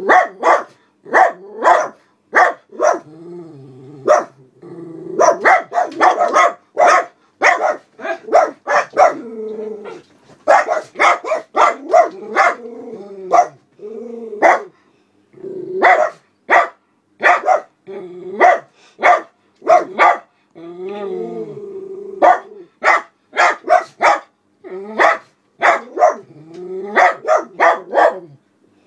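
Miniature poodles barking at a passer-by walking a dog outside, alarm barking in quick runs of sharp barks, with longer, lower drawn-out sounds in some of the gaps.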